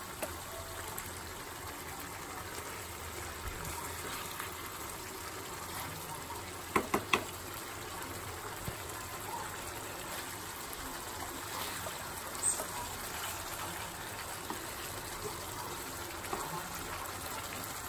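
Chicken simmering in its own released juices in a nonstick wok, a steady bubbling hiss, with a few sharp spatula knocks against the pan, two of them close together about seven seconds in.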